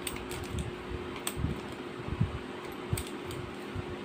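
Metal airsoft revolver shells being pushed one by one into the swung-out cylinder of a Wingun 708 revolver: light scattered clicks and soft handling knocks, with a faint steady hum underneath.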